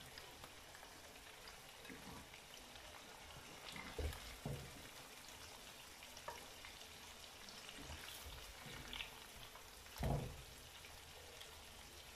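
A wooden spoon scooping and scraping chicken curry in a terracotta cazuela and tipping it into a clay serving dish. Soft clay knocks come a few times, the loudest about ten seconds in, over a faint steady hiss.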